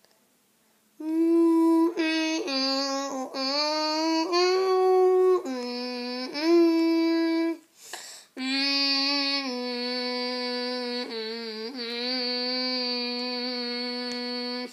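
A child's voice singing a wordless tune in long held notes that step up and down, in two phrases with a short break about eight seconds in.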